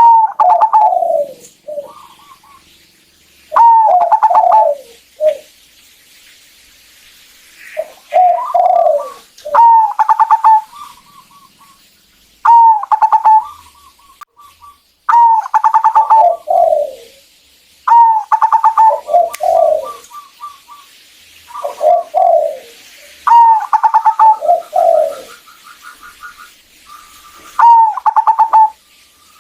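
Zebra dove (perkutut) cooing: about a dozen repeated song phrases, every two to three seconds, each a quick run of stuttering notes followed by a falling coo, with softer rapid clicking notes between the phrases.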